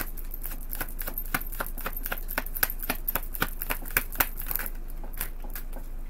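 A deck of tarot cards being shuffled by hand: quick, irregular card snaps and clicks, several a second, thinning out about two thirds of the way through.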